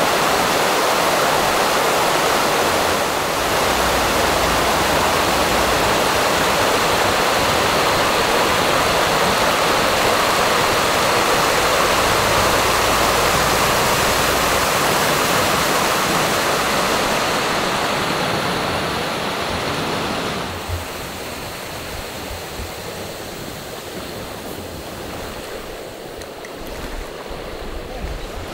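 Fast stream rushing down a steep stone-lined channel, a loud steady rush of white water. About two-thirds of the way through it drops suddenly to a softer, quieter wash of water.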